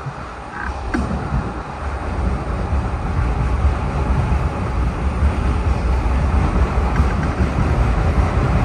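PATCO Speedline railcar running through a subway tunnel, heard from inside the front car: a steady low rumble with wheel-on-rail noise, getting louder over the first few seconds.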